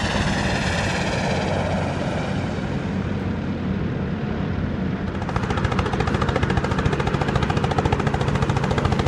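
Cessna 175's piston engine and propeller running steadily. About five seconds in, a fast, even pulsing sets in and the sound grows a little louder.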